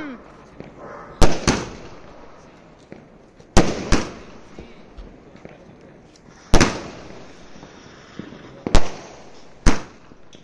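Aerial sky-shot fireworks from a multi-shot cake bursting overhead. There are about seven sharp bangs, some in quick pairs, spaced a second or two apart, each dying away briefly.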